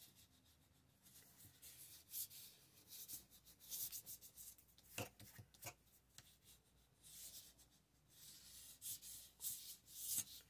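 Paper being burnished by hand, faint scratchy rubbing strokes that come and go, pressing the pieces firmly down into the page. A couple of light taps come about halfway through.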